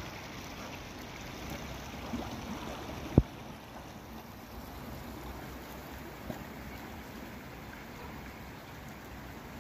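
Stormwater welling and gurgling up around a road manhole cover, the drain overwhelmed after a cloudburst; a steady rushing. A single sharp thump about three seconds in.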